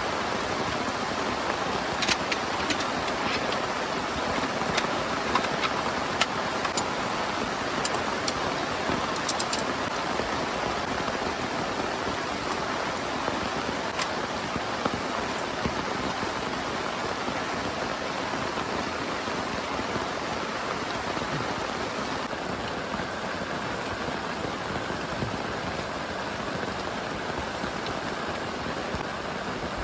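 Heavy rain falling steadily, a dense even hiss with scattered sharp ticks of single drops striking a nearby surface in the first half. The hiss turns slightly duller about two-thirds of the way through.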